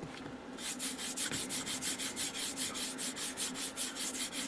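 Rapid back-and-forth rubbing on a dusty panel inside an old radio cabinet, about six or seven strokes a second, starting about half a second in, as the dust is wiped away to uncover stamped writing. A faint steady hum sits underneath.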